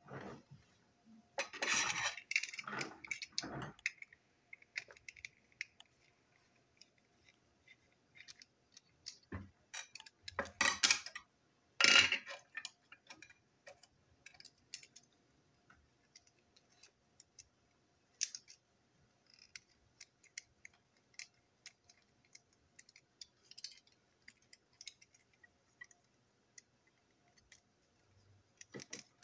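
Small plastic toy train truck parts clicking and tapping on a tabletop as they are taken apart by hand, with scattered light clicks and louder knocking and rattling about two seconds in and again around eleven to twelve seconds.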